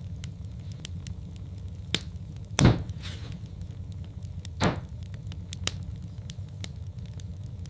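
Wood fire burning in a fireplace: a steady low rumble with frequent small crackles and a few louder pops, the loudest about two and a half seconds in and another just under five seconds in.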